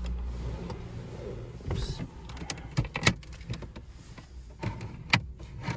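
Plastic dashboard trim around a Ford Fiesta's centre display being pried loose: irregular sharp clicks and snaps as the clips let go, the loudest about five seconds in.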